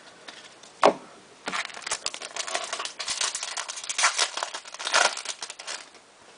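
Trading card pack wrapper being torn open and crinkled: one sharp tap about a second in, then dense crinkling for about four seconds.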